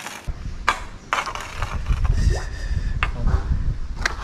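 Camera handling noise while the camera is moved: a low rumble on the microphone with several sharp clicks and knocks.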